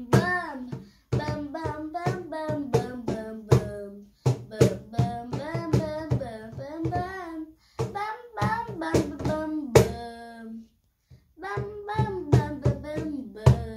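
A cajon slapped by hand in a simple beat while a child sings along. Both stop for about a second about two-thirds of the way through, then resume.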